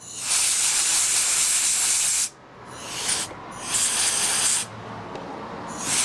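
Can of compressed air hissing in bursts as it blows over an open smoker controller's circuit board to dry off sprayed WD-40. There is one burst of about two seconds, a second of about a second and a half, and a third starting near the end.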